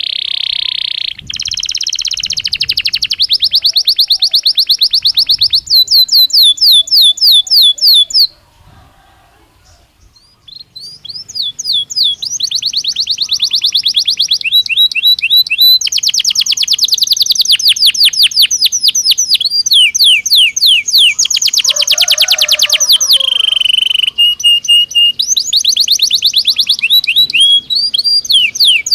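Belgian canary singing: long, fast trills and rapid runs of repeated high notes, changing from one trill type to the next, with a pause of about two seconds roughly a third of the way in.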